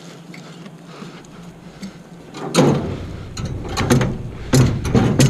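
Metal parts of a dismantled heat pump, with cut copper tubing among them, being handled and pulled about. After a quieter stretch there is a run of irregular knocks, clanks and scraping rattles, starting about two and a half seconds in.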